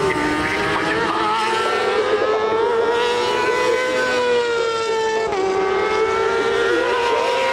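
Racing motorcycle engines at high revs, a steady high-pitched whine that rises slowly and then dips sharply about five seconds in.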